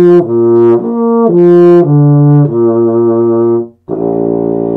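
Euphonium played with a buzzed embouchure: a string of notes, each changing pitch about every half second, then a brief break and one last held note.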